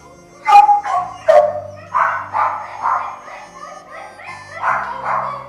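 Dogs in shelter kennels barking: two sharp, loud barks about half a second and just over a second in, then a steady run of barks at about two to three a second.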